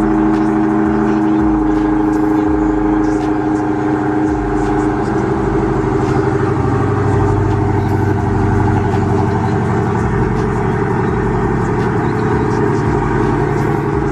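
Dodge Hellcat's supercharged 6.2-litre Hemi V8, catalytic converters deleted, idling steadily after a cold start, with a low rhythmic exhaust pulse.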